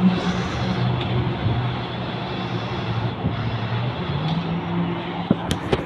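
A large vehicle running, a steady low engine hum that shifts slightly in pitch, with a few sharp clicks near the end.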